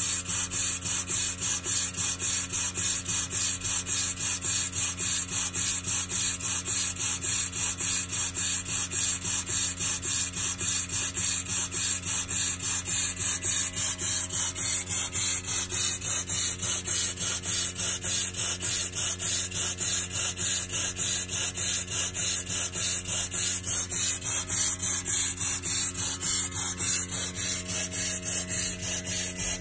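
Model overhead-crank steam engine running steadily, its exhaust hissing in a fast, even rhythm of puffs over a steady low hum.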